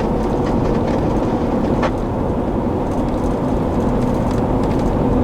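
Steady low rumble of a vehicle's engine running, heard from inside the cabin, with a steady hum over it and a single click about two seconds in.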